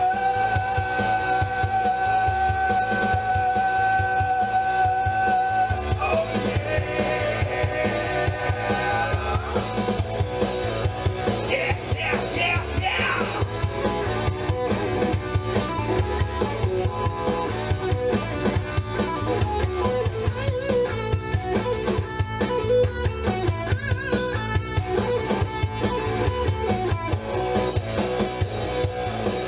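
Rock song's instrumental break on guitar and drum kit: a long held note for about six seconds, then busier guitar playing over a steady beat, with a quick hi-hat or cymbal pattern from about halfway.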